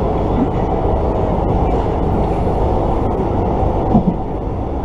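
Steady low rumble of a moving train heard from inside the carriage.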